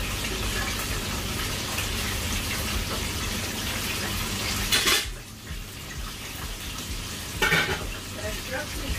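Cooking at a stove: a steady sizzling hiss as food is stirred in a pan, with sharp clanks of a metal ladle against the pan about five seconds in and again near the end. After the first clank the sizzle drops and becomes rougher and quieter.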